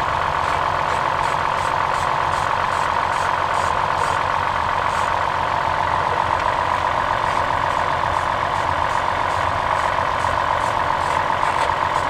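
Toyota 3.0-litre V6 (V6 3000 Four Cam 24) idling steadily but rough, misfiring continuously on one cylinder; the owner suspects a failed ignition coil. A light regular ticking sounds over the engine during the first few seconds.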